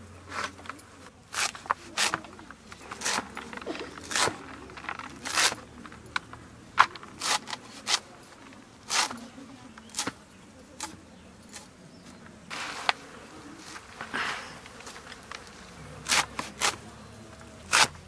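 Leafy greens being chopped on an upright boti blade, an irregular run of crisp cutting snicks about one or two a second.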